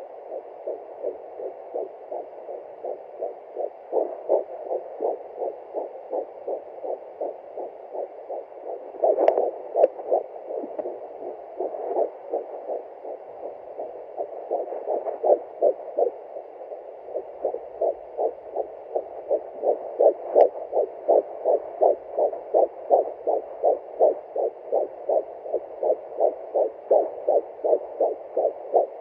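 Fetal heartbeat of a 10-week pregnancy heard through a Hi-Bebe home fetal doppler: a fast, even pulsing of about two and a half to three beats a second. A brief knock comes about a third of the way in and another about two-thirds through.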